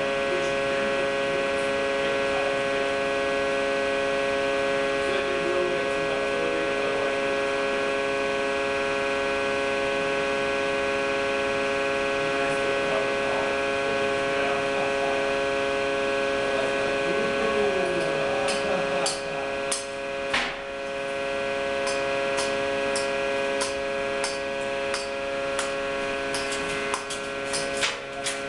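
Steady hum of many fixed tones from the compression testing machine, with a run of sharp clicks and knocks starting a little after halfway through as crushed concrete is chipped and picked off the top of the failed concrete column.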